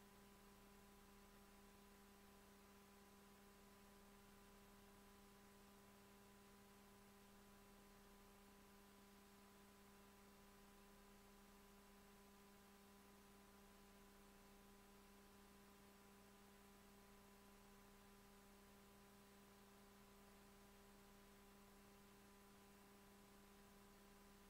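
Near silence with a faint steady hum of a few constant tones.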